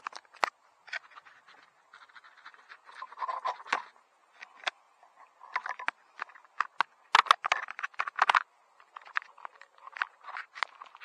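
Handling noise on a quadcopter's onboard camera: irregular clicks, scrapes and rustles as a hand grips the landed drone and fingers rub across the camera and frame.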